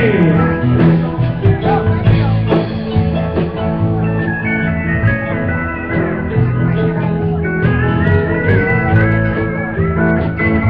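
Live country dance band playing an instrumental passage with guitar, keyboard and drums; a high lead melody comes in about four seconds in.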